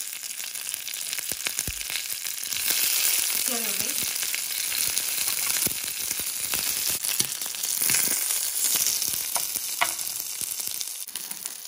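Mustard seeds, curry leaves and small shallots frying in hot coconut oil in a stainless steel pan: a steady sizzle with scattered pops and crackles from the mustard seeds. The sizzle grows louder a few seconds in as the shallots go into the oil.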